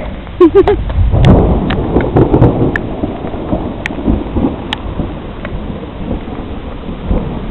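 Thunder rumbling, swelling about a second in and slowly easing off, over steady rain with scattered sharp drop clicks.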